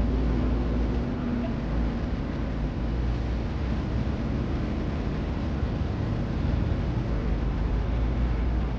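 Steady low rumble with an even hiss over it.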